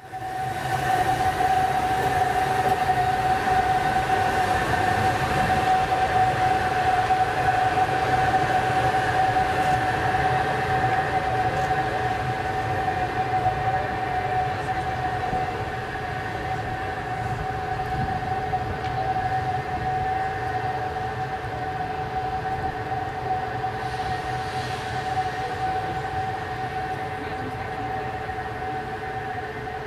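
Vintage SBB electric locomotive moving slowly: a steady high-pitched electric whine over a lower hum, fading gradually.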